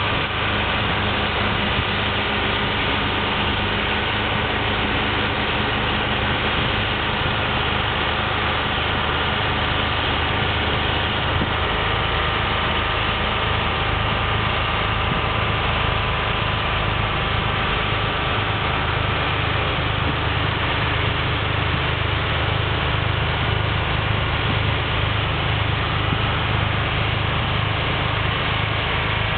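John Deere 4450 tractor's six-cylinder diesel engine running steadily while driving a Red Devil snowblower, a constant engine drone with no change in pace.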